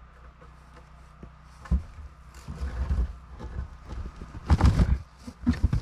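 Irregular heavy thuds and scraping as a large log is pried and shifted with a wooden leverage pole. The loudest knocks come about two-thirds of the way in.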